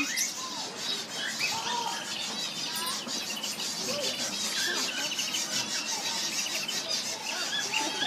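Many small aviary birds chirping and chattering at once, a dense, continuous twitter of short overlapping calls.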